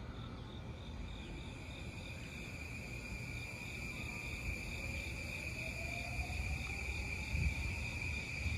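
JR E235-1000 series electric train pulling away, its traction motors whining with a tone that rises in pitch as it gathers speed, over a low rumble of wheels on the rails. Insects chirp in a quick pulsing rhythm.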